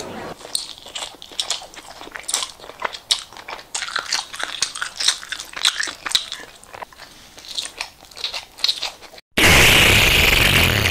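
A person eating noisily, face down in a plate of food: a long run of quick, irregular chewing and biting smacks. About nine seconds in it cuts to the steady rush of splashing fountain water.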